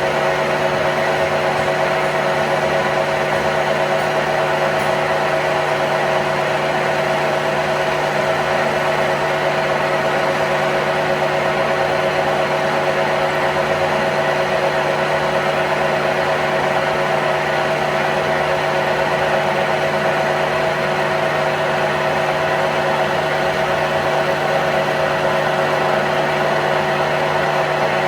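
A machine running at a constant speed with a steady hum and whir, with no change in pitch or level.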